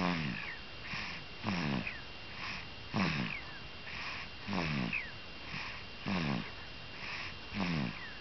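A baby snoring loudly in a regular rhythm, about one snore every second and a half. Each snore is a short rasping sound that falls in pitch, with softer breathing between the snores.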